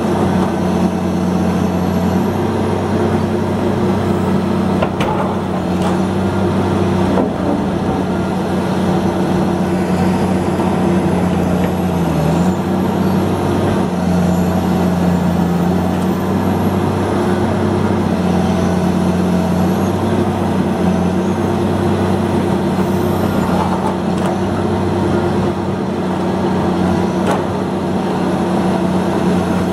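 Liebherr R954C high-reach demolition excavator's diesel engine running steadily under hydraulic load, its pitch dipping briefly now and then, with a few faint knocks of concrete being crushed.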